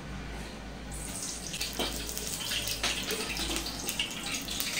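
Cooking oil poured from a ladle into a warming metal pot, a steady pouring hiss starting about a second in, with a couple of light clinks of the ladle.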